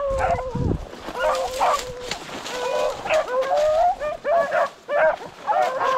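A pack of rabbit-hunting dogs barking and baying together in quick, overlapping cries: hounds in full cry running a rabbit.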